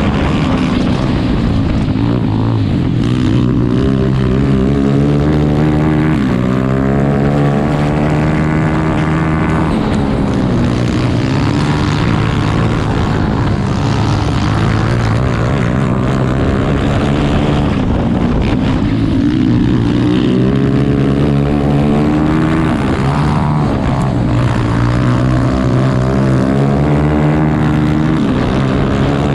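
Grass kart engine running hard under racing, heard from on board. Its pitch climbs and drops back several times as the throttle opens and eases.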